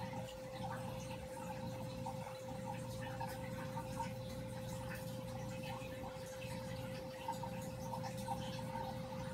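Aquarium pump running with a steady hum, over a faint trickle of water with small drips.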